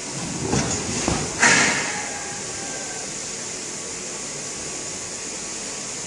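A large roll of EPE foam sheet being handled: a few knocks and rustles, then a short scraping rush about a second and a half in, over a steady hiss.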